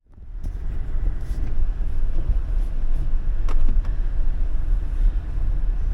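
Motorhome on the move: a steady low rumble of engine and road noise that fades in at the start, with a few light clicks through it.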